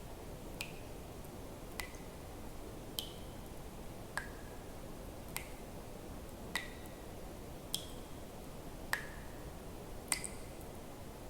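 Water drops falling one at a time, nine in all, evenly about 1.2 seconds apart, each a short plink whose pitch changes from drop to drop, over a steady low hiss.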